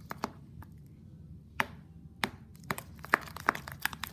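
Homemade shampoo-and-salt slime being stirred and worked, giving irregular sharp sticky clicks. They are sparse with a lull about a second in, then come quickly near the end.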